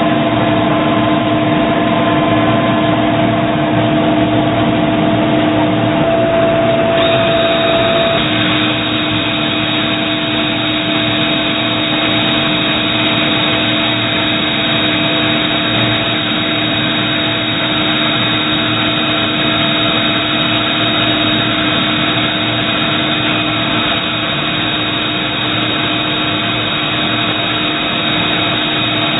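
Doosan Puma ST20G CNC lathe running with a steady machine hum and a few held tones. About seven to eight seconds in, the tones change and a hiss grows louder.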